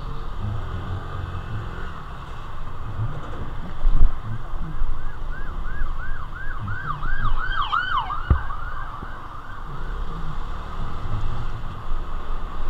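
Emergency vehicle siren in a fast yelp, swelling from about four seconds in to a peak near eight seconds and then fading, over the low rumble of the motorcycle ride. A sharp knock comes just after the siren peaks.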